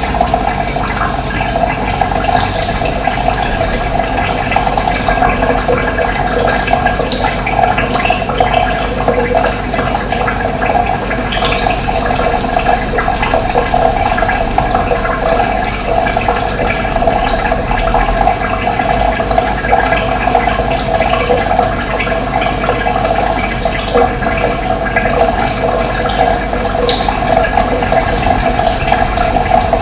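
Running water, a steady, loud rush of flowing water that does not let up.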